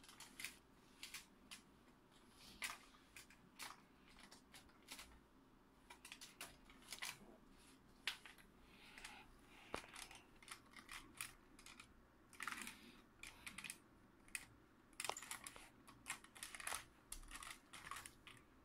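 A cloth towel rubbing over a plastic toy car: faint, irregular scuffs and light clicks, with a few sharper clicks.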